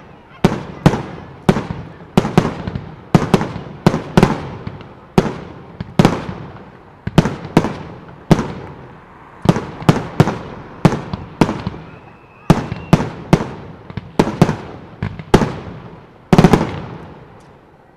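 Aerial fireworks bursting in quick succession: a sharp bang every half second to second, each trailing off in echo, with a heavier double bang near the end.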